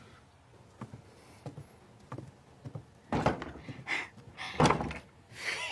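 A wooden door being shut: a few knocks and thuds about three to five seconds in, after a quiet stretch with faint small clicks.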